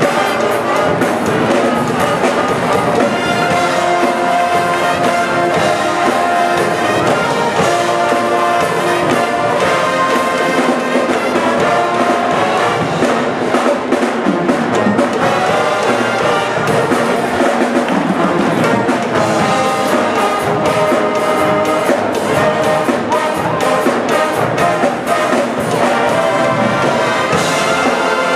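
College pep band playing a loud brass tune, with trumpets, trombones and saxophones carrying the melody over sousaphones.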